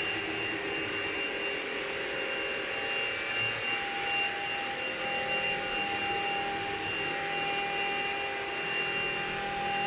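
CNC stone-engraving machine running, its spindle giving a steady high whine over a hiss.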